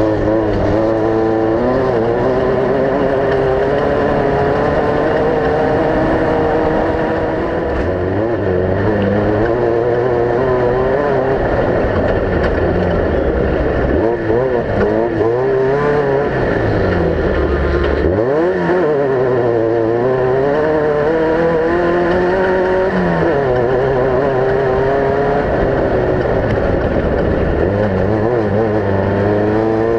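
Off-road race vehicle engine running hard, its pitch rising and falling again and again as the throttle comes on and off, with one long deep drop in pitch about halfway through.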